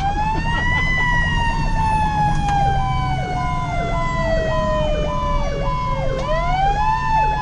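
Fire apparatus sirens on an emergency response. A wailing siren falls slowly in pitch for about five seconds, then winds back up about six seconds in. A second siren yelps quickly and repeatedly under it, and the truck's engine rumbles low and steady.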